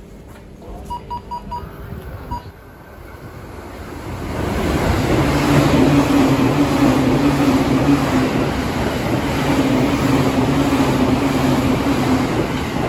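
Four short high beeps about a second in, then a JR E259 series Narita Express electric train running in along the platform from about four seconds: a loud, steady rush of wheels and running gear with a low hum under it.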